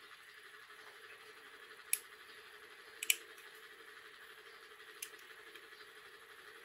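Light, sharp metallic clicks of small parts on a brass rotary tattoo machine being fitted by hand: one about two seconds in, a quick double click about three seconds in, and one about five seconds in, over a faint steady hum.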